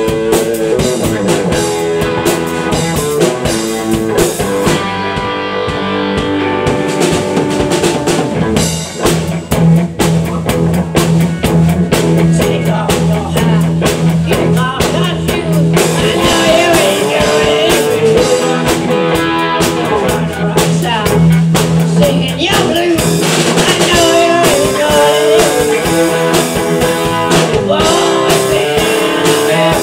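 Live rock band playing: a Mapex drum kit keeping a steady beat under electric guitar.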